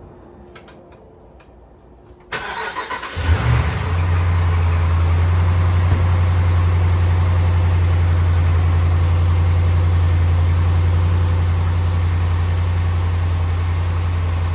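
Rebuilt Hemi V8 engine in a Ram pickup cranked by the starter about two seconds in, catching within a second and settling into a steady idle.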